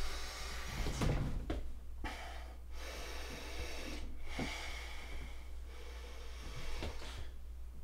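A man breathing heavily, taking several deep breaths in and out, over a faint steady room hum.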